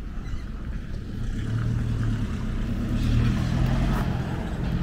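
Motor vehicle engine running with a low hum that grows louder about a second in.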